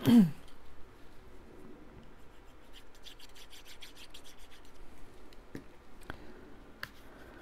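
Cardstock edges rubbed against an ink pad: soft, scratchy rubbing, with a quick run of fine strokes about three seconds in and a few light ticks near the end. A brief falling voice sound comes at the very start.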